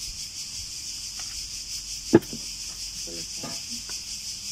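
Steady high chirring of insects, finely pulsing, with one sharp click about two seconds in.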